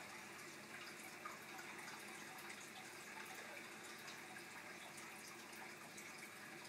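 Faint, steady sound of water running in an aquarium, from the filter's return flowing through a perforated spray-bar pipe.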